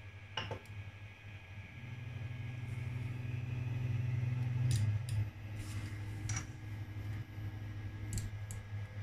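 3D printer's stepper motors running as the print head homes: a hum grows louder from about two seconds in and stops abruptly near five seconds, then a quieter, higher motor tone runs until about eight seconds. A steady low hum lies underneath, with a few sharp clicks.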